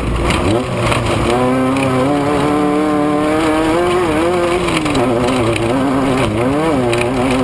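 Off-road race vehicle's engine running at steady high revs, dipping and picking back up several times as the throttle is lifted and reapplied, over a constant rushing noise.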